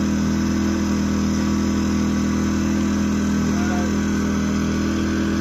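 Yamaha EF2200iS inverter generator's single-cylinder four-stroke engine running at a steady, even speed.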